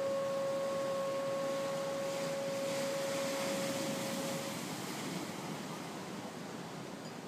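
A single long blown horn note, held steady and dying away about four and a half seconds in, over a steady wash of ocean surf.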